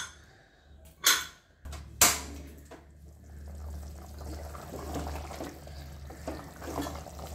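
Wooden spatula stirring thick chicken curry gravy in an aluminium pressure-cooker pot, a wet, sloshing stir. Two sharp knocks about one and two seconds in, with a low steady hum under the stirring after the second knock.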